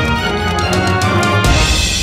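Background music: a loud track that comes in with a quick run of drum hits, then a crash with heavy bass about one and a half seconds in.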